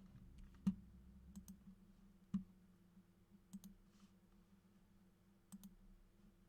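A few faint, scattered clicks, each sharp and brief, over a low steady hum.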